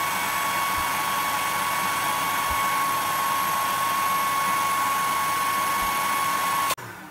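Hair dryer running as an overload on a miniature circuit breaker, a steady high motor whine over the rush of air. About 6.7 s in it cuts off abruptly as the breaker trips on overload, and the whine starts to fall as the motor winds down.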